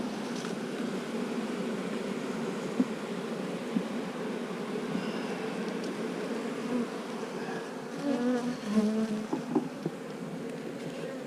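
Honeybees humming steadily around an open hive. Single bees buzz close by, their pitch wavering, about eight to nine seconds in, and there are two light knocks.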